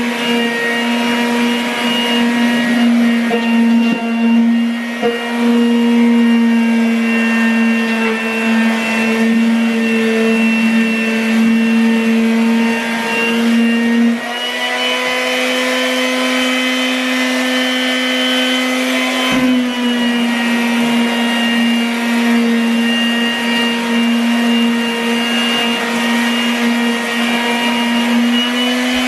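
Corded electric palm sander running steadily while pressed against a popcorn-textured ceiling, sanding the texture off. It gives a loud, constant motor whine with a grinding hiss, and its pitch steps up slightly about halfway through.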